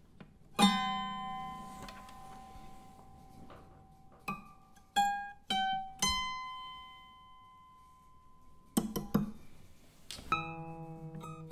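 Slow, sparse music of single plucked-string notes, each starting sharply and ringing out for a second or more, a few seconds apart. A fuller chord comes in about ten seconds in.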